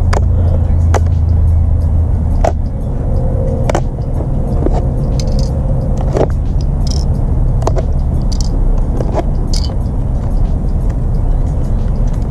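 Metal binder clips being unclipped from an aluminium-foil pie-plate trap: scattered sharp clicks and light foil crinkling, over a steady low rumble.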